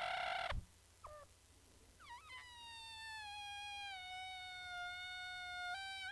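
Balloon deflating, its stretched neck squealing as the air escapes: a loud, rough squeal that cuts off about half a second in, a short chirp, then from about two seconds in a long, quieter whining squeal that slowly sinks in pitch and jumps up briefly near the end.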